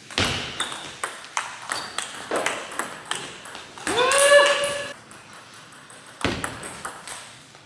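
Table tennis ball being hit back and forth in a rally, sharp clicks of bat and table about two to three a second. About four seconds in, a player's voice rises into one held shout. Clicking starts again about six seconds in.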